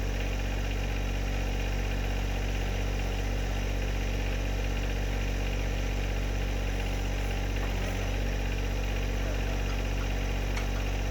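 A John Deere 1025R sub-compact tractor's three-cylinder diesel engine idling steadily, with a couple of faint light clicks in the second half.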